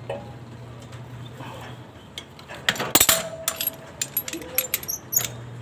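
Metal hand tools clinking and clicking against the hub of a trike's side wheel as the axle nut is worked with locking pliers and a wrench: a loud cluster of clinks about halfway in, then a string of scattered sharp clicks.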